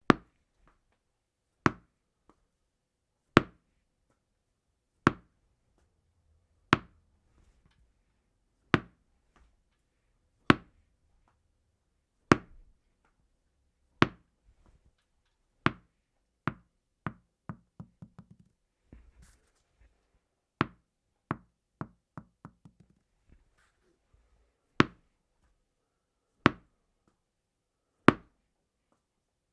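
Tennis ball bouncing: single bounces about every second and a half, then twice a run of quickening, fading bounces as the ball settles, then single bounces again.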